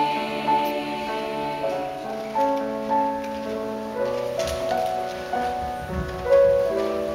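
Piano playing slow, sustained chords, with a fresh chord struck every second or two.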